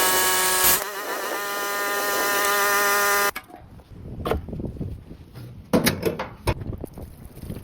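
Pressure washer running with a steady high whine over a spray hiss, cutting off abruptly a little over three seconds in; scattered knocks and clicks of equipment handling follow.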